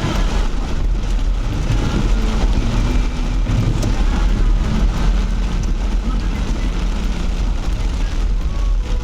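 Off-road Suzuki 4x4 engine running steadily as it drives a slippery track, with heavy rain falling.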